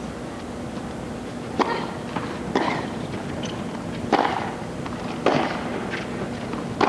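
Tennis rally: a tennis ball struck back and forth with rackets, five sharp hits about a second and a half apart.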